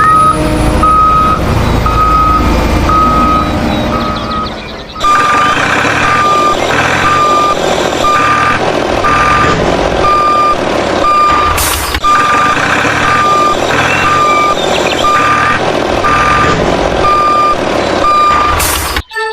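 Vehicle reversing alarm beeping steadily, about one beep a second, over a running engine; the sound dips briefly and picks up again just before five seconds in.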